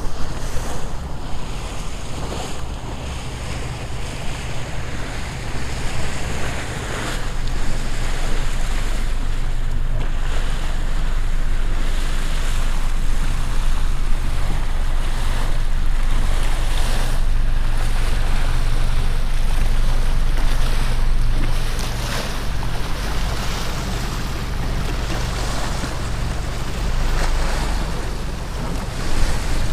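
Wind buffeting the microphone over waves lapping against a small boat's hull, with a steady low rumble and occasional surges.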